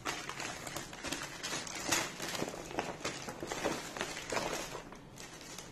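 A clear plastic packaging bag crinkling and rustling as it is cut and pulled open by hand, in a run of short crackles that die down near the end.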